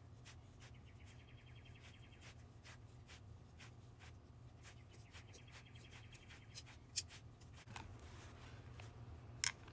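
Faint rasping and light clicks as a hand-held oil filter cutter's round blade scores through the thin steel can of an oil filter being turned by hand between its rollers, in two stretches of fine rapid scraping, with a sharper click near the end.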